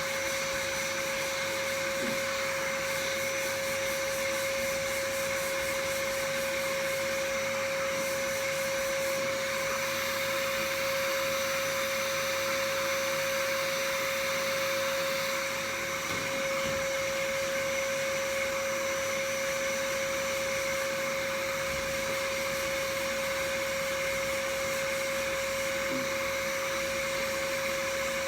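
Power sander running steadily with a constant whine, its level dipping briefly about halfway through.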